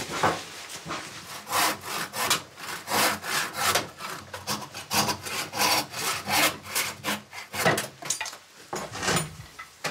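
Wood being worked by hand in repeated back-and-forth strokes, about two a second and unevenly timed, as parts of a hand-built wooden rocking chair are finished.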